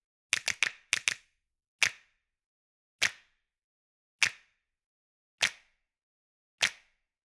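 A crowd's finger snaps, struck together on a steady beat. A quick run of five snaps comes in the first second or so, then one snap about every 1.2 seconds, with dead silence between.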